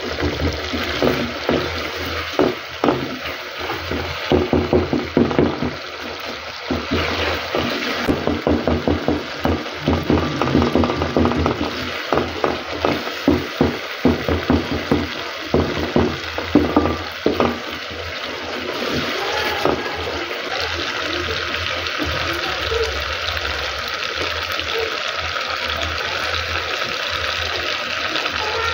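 A wooden spoon stirring and scraping chopped tomatoes frying in oil in a metal pot, with quick irregular scrapes and knocks. After about two-thirds of the way through the stirring stops and the steady sizzle of the frying sauce carries on alone.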